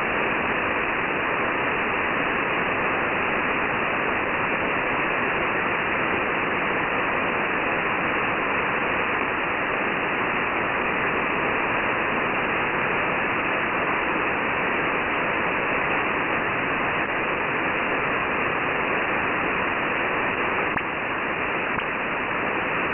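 Steady hiss and static of an open shortwave channel: an HF receiver tuned to 11175 kHz in single-sideband mode, with no station transmitting. The hiss sounds thin and muffled, with no highs.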